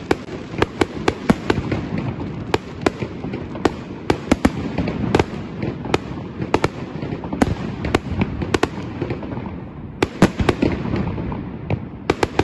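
Aerial fireworks going off: many sharp bangs and cracks, a few a second and irregularly spaced, over a steady low rumble.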